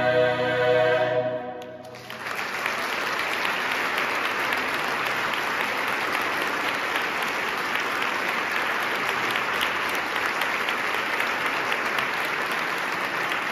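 A choir holds its final chord, cut off a little over a second in; after a brief hush, the audience breaks into steady applause that carries on through the rest.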